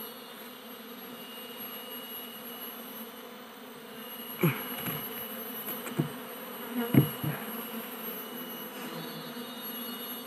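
A colony of Asian honey bees (Apis cerana) buzzing steadily around their nest in a hollow tree. Three brief knocks come in the middle as a stone is fitted over the nest opening.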